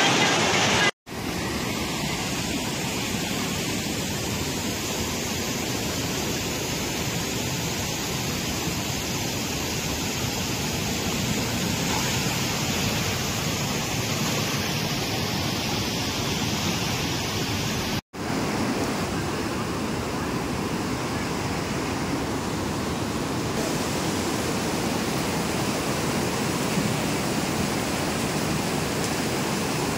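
Flash-flooding hill river rushing over rocks: a steady, dense rush of fast white water. It cuts out for an instant twice, about a second in and about eighteen seconds in.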